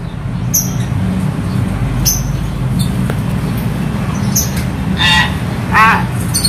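Caged hill myna calling: a few brief, high squeaks, then two louder, wavering calls near the end. A steady low hum runs underneath.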